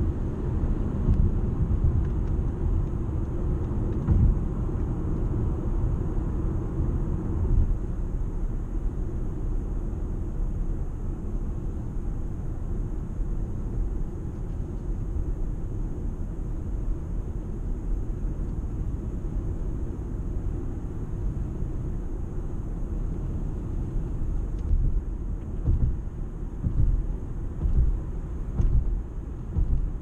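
Toyota Camry Hybrid on the move: a steady low rumble of road and tyre noise, with some uneven swells in loudness near the end.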